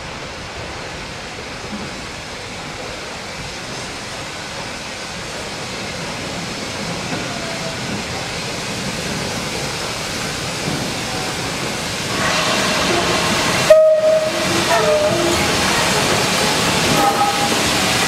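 Steam locomotive 52322, a Lancashire & Yorkshire Railway 0-6-0, and its carriages approaching through a tunnel, a steady rumble growing louder. About twelve seconds in it gets louder, with short squealing tones and a sharp peak followed by a momentary break in the sound.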